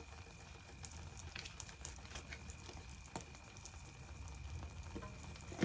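Egg omelette with vegetables frying gently in oil in a pan: faint scattered crackles and small pops over a low hiss, with one sharper tick near the end.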